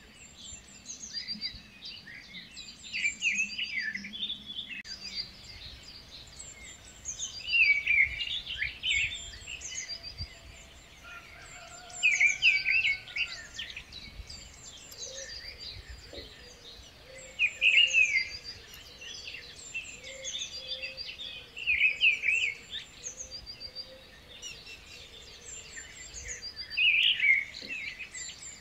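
Birds chirping and singing, with a louder burst of chirps about every four to five seconds over fainter, higher repeated chirps.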